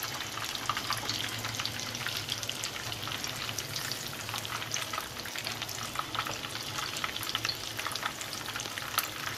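Breadcrumb-coated chicken cutlets shallow-frying in hot oil in a pan: steady sizzling with a constant crackle of small pops, and one louder pop near the end.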